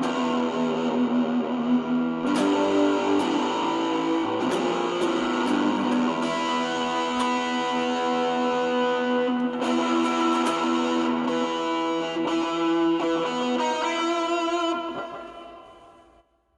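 Electric guitar played through a pedalboard with distortion, overdrive, hall reverb and a Strymon Brigadier delay: held notes and chords, each picked attack sharp, fading away near the end.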